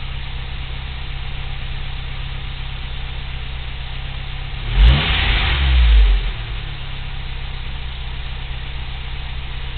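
Toyota 22RE four-cylinder engine idling steadily. Halfway through, it is blipped once: a quick rev up and back down to idle in about a second and a half. The owner suspects the engine has a misfire.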